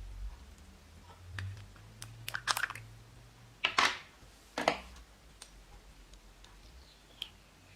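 Slime being worked by hand, giving scattered clicks and three louder crackling bursts in the middle.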